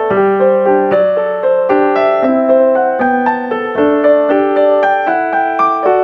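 Background piano music: a melody of struck notes over lower chords, about two to three notes a second.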